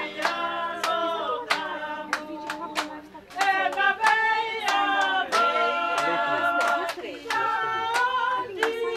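A group of voices singing in harmony without instruments, kept in time by steady hand clapping.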